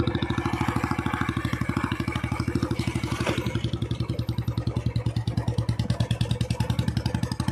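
Motorcycle engine running steadily under way, a fast, even putter.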